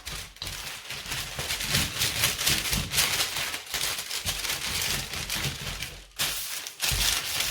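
Baking paper being handled, crinkling and rustling with irregular small crackles, with a short lull about six seconds in.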